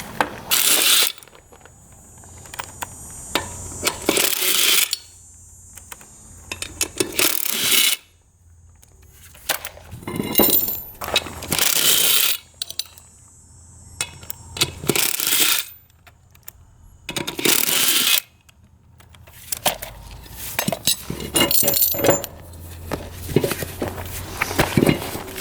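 Metal clinking and clattering in a series of short loud bursts, with abrupt breaks between them.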